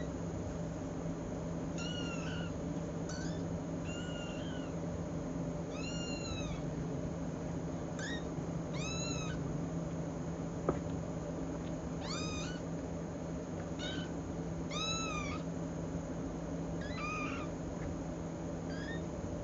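Young kittens meowing: about a dozen high-pitched meows, each rising then falling, one every second or two. A single sharp click comes about halfway through, over a steady low hum.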